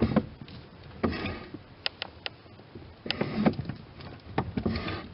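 Irregular knocks, sharp clicks and short scraping bursts from a 1998 Daewoo Lanos's steering as the steering wheel is turned. The steering rack is shifting in its broken mount on the cracked firewall.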